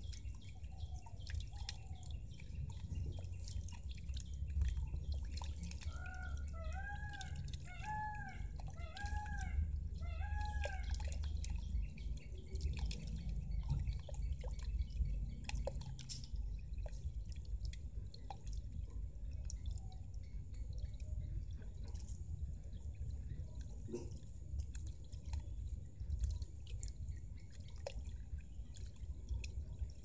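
Small solar-powered fountain jet splashing and dripping into a shallow pond, the drips thinning out in the second half as the jet dies down. A bird calls five times about a second apart in the first third.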